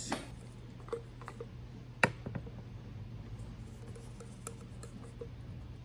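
Handling noise as a caulking gun loaded with a silicone tube is picked up and brought to the windshield frame: scattered small clicks and knocks, with one sharp click about two seconds in, over a steady low hum.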